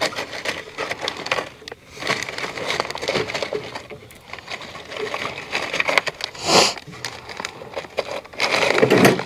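Small metal clicks and rattles of bolts, washers and nuts being handled and fitted by hand into the corrugated steel panels of a raised garden bed. There is one louder short rustling scrape about two-thirds of the way in.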